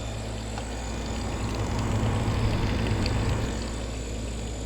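GE 6000 BTU window air conditioner running, heard from its outdoor side: a steady low hum from the compressor under the rush of the condenser fan blowing hot air out the back.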